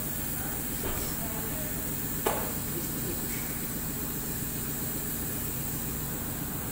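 Steady workshop background noise, with a light click about a second in and a sharp metallic clink a little over two seconds in as a socket wrench is worked on an engine block.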